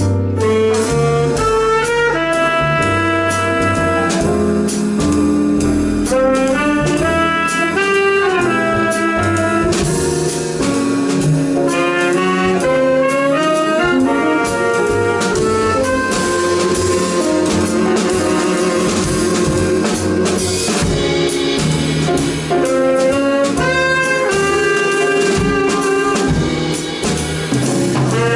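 Jazz band playing a tune live, with a horn carrying the melody over drum kit and a low bass line.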